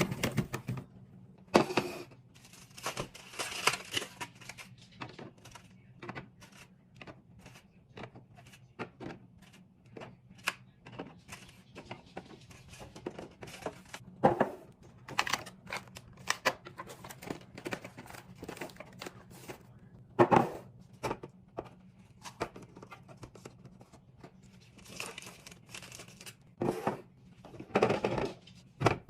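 Plastic packaging crinkling and tearing, with scattered clicks and knocks of containers and items being handled and set down, and a few louder thuds.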